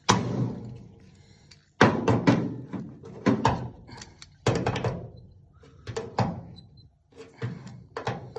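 An irregular series of about a dozen sharp thunks and knocks, some in quick pairs, each dying away briefly.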